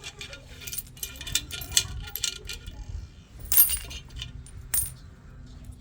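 Metal clinks and knocks from the rotor of an LG direct drive washing machine motor being handled and fitted over the stator, with two sharper knocks about three and a half and five seconds in.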